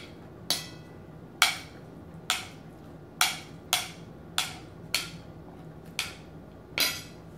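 Metal spoon clinking against a dinner plate while food is scooped up: about nine sharp clinks at uneven intervals.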